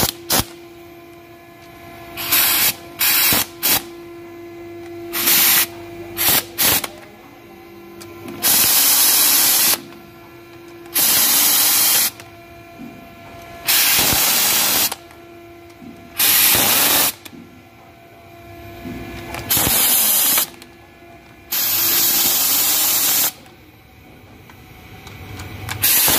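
Air impact driver running cylinder head bolts down in short, controlled bursts through a 10 mm Allen socket. First come several quick blips, then about six longer bursts of roughly a second each as the bolts are seated, with the tool's air hissing.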